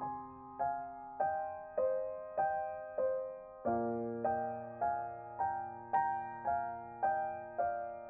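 Soft background piano music: single notes struck at a slow, even pace, each dying away, over a held bass note that changes about four seconds in.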